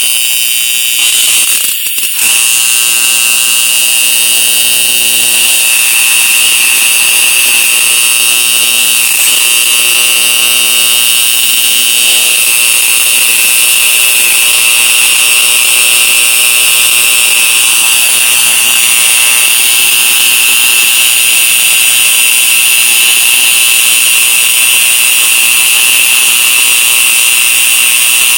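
Homemade water spark-plug unit running with its chamber under 20 psi of air, giving a loud, steady, high-pitched buzz that briefly cuts out about two seconds in.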